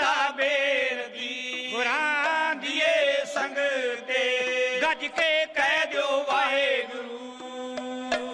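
Dhadi music: a drawn-out, wavering melodic line in a chant-like style over a bowed sarangi, with a steady low note held beneath it. Light strokes on the dhad drums come in more often near the end.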